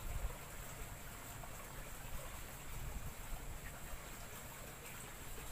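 Steady outdoor background of a small creek running, with a low rumble underneath and a thin, steady high tone.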